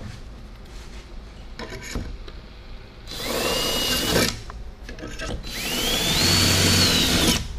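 Cordless drill boring holes through a drilling jig into a plastic kayak's gunwale: two runs, the first about a second long and the second nearly two seconds and louder, each with a whine that rises as the motor spins up and drops as it stops. A few light handling clicks come before the first run.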